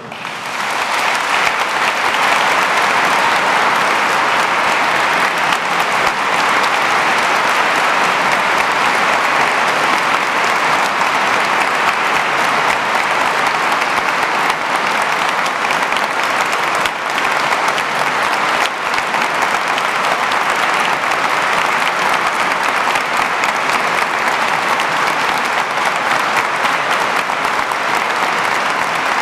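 An audience applauding, swelling up within the first second and then continuing steadily without a break.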